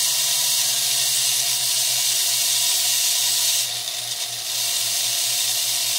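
Rotary carving handpiece running with a diamond bit grinding wet fire agate under light pressure in tiny circles, to smooth the stone to an even surface. It gives a steady motor hum and whine with a grinding hiss, and turns briefly quieter and hissier about four seconds in.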